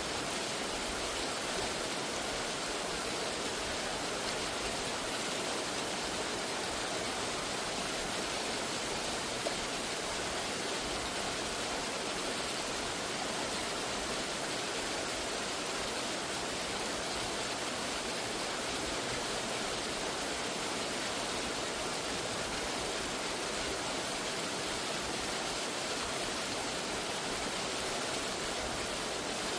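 Steady rushing of a mountain waterfall, an even, unbroken wash of water noise.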